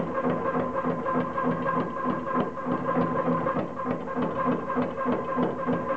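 Mechanical power hammer running and striking a red-hot iron bar with rapid, even blows, over a steady machine hum.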